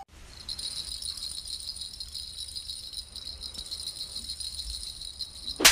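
Small bells jingling steadily and continuously. A brief loud hit comes near the end.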